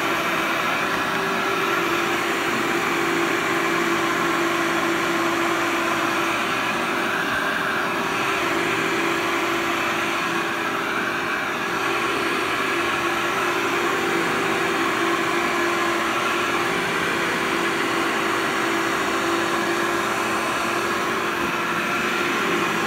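Oxy-Dry Workhorse upright vacuum cleaner running steadily as it is pushed over carpet, a constant motor hum with a steady whine.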